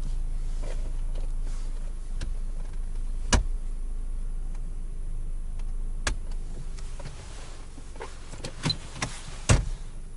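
A car engine running at low speed, heard from inside the cabin as a steady low hum while the car creeps into a parking space. Several sharp clicks and knocks come through it, the loudest near the end.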